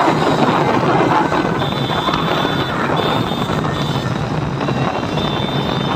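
Motorcycle engine running steadily while riding behind bullock carts, with wind buffeting the microphone.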